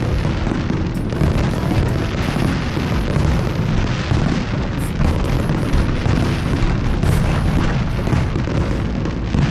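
Fireworks bursting in quick, overlapping succession: many booms run together into a continuous rumble, with a few sharper cracks on top.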